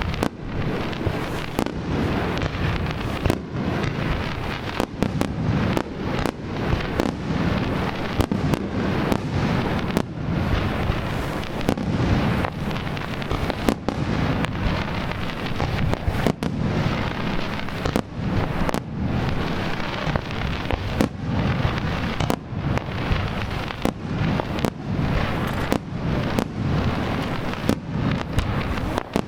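Wide starmine fireworks barrage: shells bursting in rapid, overlapping succession. Deep booms run together with sharp cracks and crackle, without a pause.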